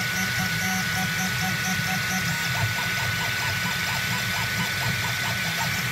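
Desktop FDM 3D printer printing: its stepper motors sound out short repeated pitched tones as the print head moves back and forth, about three to four a second through the middle, over a steady hum and a high steady tone.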